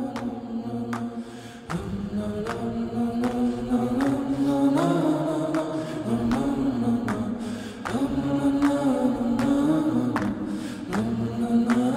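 A voice singing a slow melody in long, held notes that glide between pitches, over light taps that keep an even beat about every three-quarters of a second.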